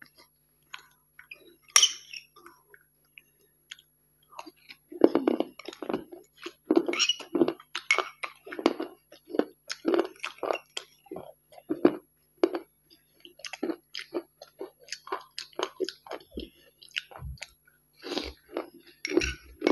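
Close-miked crunchy chewing of dry grains, a steady run of chews from about five seconds in. About two seconds in, a steel spoon clinks against the glass bowl.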